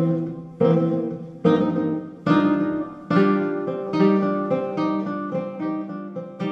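Acoustic guitar music: chords struck roughly every second and left to ring and fade between strokes.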